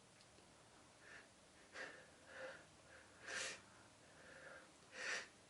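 A person's faint, hitching in-breaths and gasps: the run-up to a sneeze. There are four or five short breaths, a second or so apart, each louder than the last.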